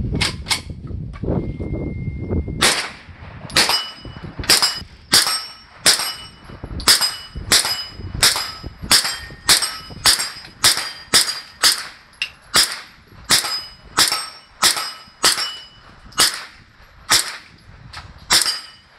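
Kalashnikov USA KP9 9mm semi-automatic pistol firing: two quick shots at the start, then after a short pause a steady string of about two dozen shots at a bit under two a second. Many shots are followed by a clear ring, steel targets being hit.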